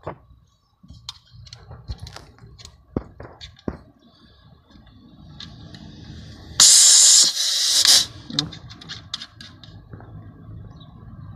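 Nitrogen gas hissing loudly out of a hydraulic breaker hammer's accumulator charging valve for about a second and a half, in two back-to-back spurts, as a pressure gauge fitting is pressed onto it to check the charge pressure. Small metallic clicks and taps from handling the brass fitting come before and after.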